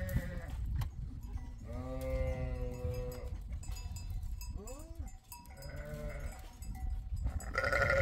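Sheep and goats bleating in a pen: one long bleat about two seconds in, then shorter ones, with a louder bleat at the end, over a steady low rumble.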